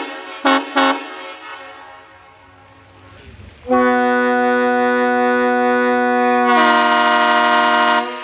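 Multi-chime locomotive air horn blown on compressed air: two short toots, then after a pause a long chord held for about three seconds. The chord changes to a brighter one for the last second and a half and cuts off sharply.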